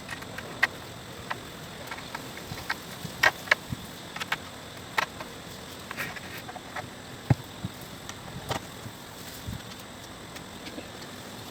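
Irregular light clicks and knocks, a couple of dozen in all and unevenly spaced, over a steady background hiss.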